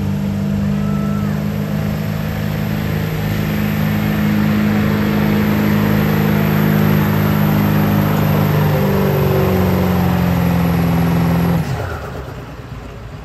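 Ford F-250 pulling truck's engine running hard at a steady pitch, under load from the pulling sled. About eleven and a half seconds in the throttle is let off and the engine sound drops away, its pitch falling.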